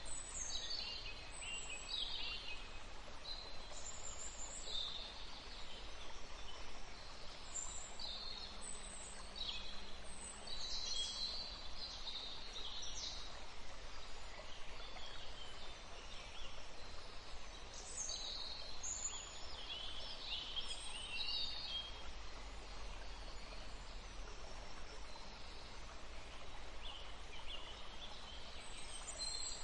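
Songbirds singing: many short, high chirps and song phrases, with a couple of quieter stretches, over a faint steady background hiss.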